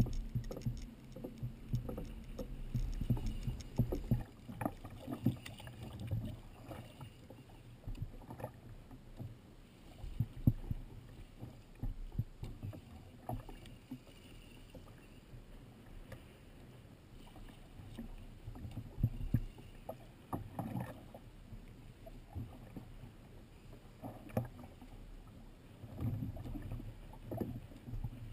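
Ocean water lapping and sloshing against the hull of a drifting sit-on-top fishing kayak, with scattered short knocks and bumps.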